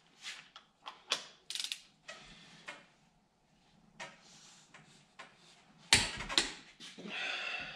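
Hand ratchet wrench clicking in short runs as bolts on a differential carrier are worked, with two sharp, louder metal clacks about six seconds in and a brief rasp near the end.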